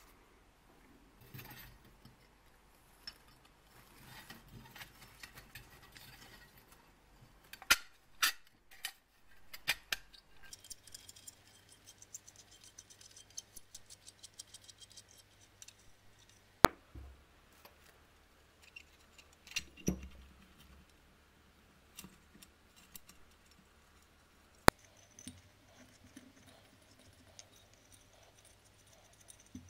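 Small metal parts of an old electric cooker hotplate being handled and taken apart: scattered light clicks and clinks of sheet metal, wire and screws, with a run of louder knocks about a third of the way in and two sharp clicks later on.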